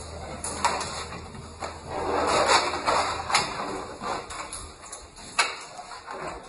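Wire dog crate clinking and rattling several times as dogs nose and paw at its bars, with a louder scuffling noise about two to three seconds in.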